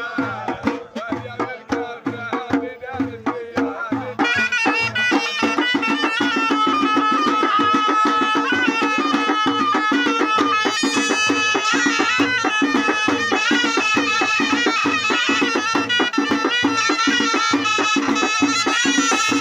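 Moroccan aita folk music. Men sing over a steady beat on a double-headed drum, and about four seconds in a ghaita, the Moroccan reed shawm, comes in and plays a continuous melody over the drum, making the music clearly louder.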